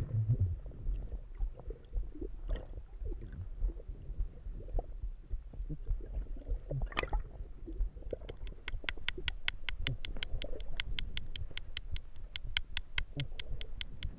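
Underwater sound picked up by a swimmer's camera: muffled low rumbling and gurgling of water and movement, with scattered soft knocks. About halfway through, a fast, very regular train of sharp clicks starts, about five a second.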